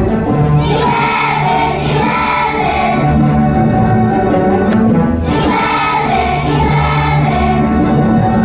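A class of young children singing a song together as a choir over an instrumental accompaniment with sustained bass notes.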